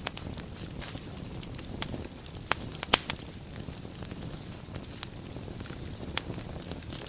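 Wood fire burning in a fireplace: a steady low rush of flames with frequent small crackles and a few sharper pops, the loudest about two and a half and three seconds in.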